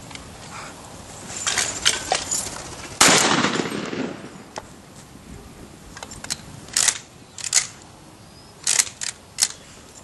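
A single shotgun blast about three seconds in, a sharp crack with a short fading echo. Several smaller sharp clicks and knocks come before and after it.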